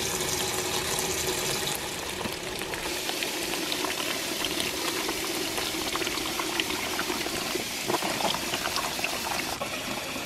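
Kitchen tap running a steady stream of water into a kimchi container full of brined dandelion greens, splashing into the water already in it, as the salt brine is rinsed out.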